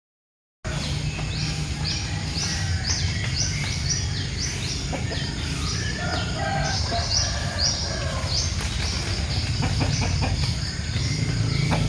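Small birds chirping over and over in short, high, falling notes, with chickens in among them, over a steady low rumble.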